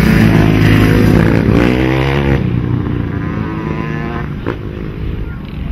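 Enduro motorcycle engine revving hard, rising in pitch, then dropping away sharply after about two seconds and fading as it goes on.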